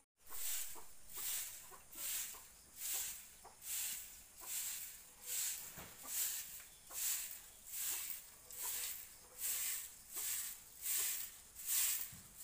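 Stiff bundle broom of thin stalks sweeping a bare earth yard: a regular swish about every second, over a dozen strokes in a row.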